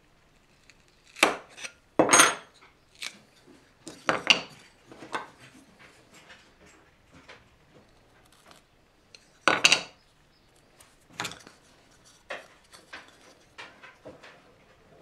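Hard objects being handled and set down: a string of irregular knocks and clatters, the loudest about a second in, about two seconds in, and near ten seconds.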